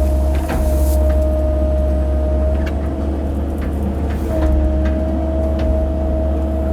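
Mini excavator's engine running steadily under load, with a steady hydraulic whine that drops out for about a second midway and then returns. Scattered short clicks and knocks.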